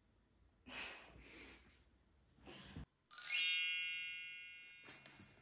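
Soft rustling, then about three seconds in a bright chime sound effect: a quick upward sparkle into a ringing chord of many high tones that fades away over about two seconds.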